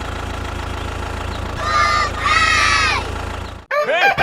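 An engine runs steadily with a low hum and a fast, even pulse. About a second and a half in, high-pitched voices call out twice over it. Everything cuts off abruptly near the end.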